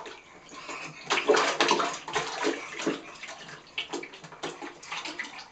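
Bathwater splashing and sloshing in a baby's clear plastic bucket bath, a run of quick splashes that is loudest between about one and two seconds in.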